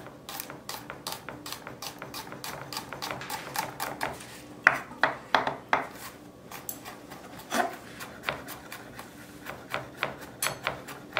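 Chef's knife chopping fresh garlic cloves on a wooden cutting board: a quick, uneven run of knife taps on the wood, with a few louder strikes in short runs.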